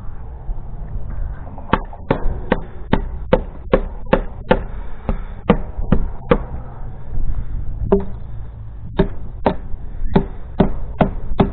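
Repeated hammer blows, about two or three a second with short pauses in between, knocking an old chain and its nails off a gate.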